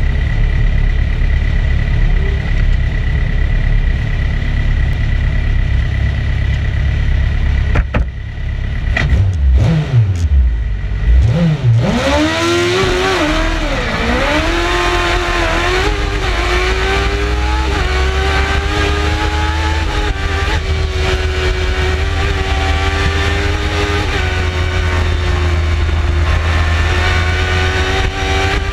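BRC 05 EVO race car's engine heard from on board: a steady low rumble, then a few revs at the start line. About twelve seconds in it launches and accelerates hard up through the gears, the pitch climbing and dropping at each of several upshifts, then holds at high revs.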